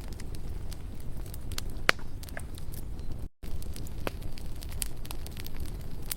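Campfire burning, with irregular sharp crackles and pops over a steady low rumble of the flames; one pop about two seconds in stands out loudest. The sound cuts out for a split second a little past halfway.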